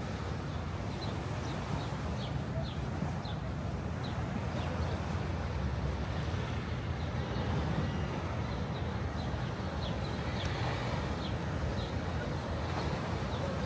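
Steady outdoor ambience: a low rumble with an even hiss over it, and faint short high chirps now and then.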